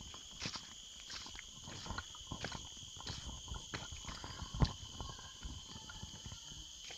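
Irregular footsteps on the forest floor, a short snap or crunch every fraction of a second, with one heavier footfall about halfway through. Behind them runs a steady, high-pitched insect chorus of tropical rainforest.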